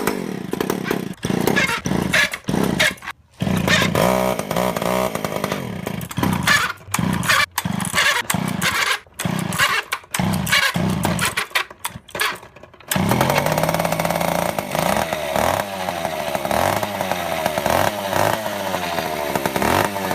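Two-stroke chainsaw engine heard in short stretches broken off abruptly again and again. About two-thirds of the way through it settles into running without a break, its pitch rising and falling as it is revved.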